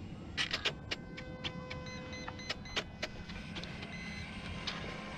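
A run of sharp clicks and knocks in the first three seconds, over low wind rumble and thin steady whining tones from a small electric RC airplane flying overhead.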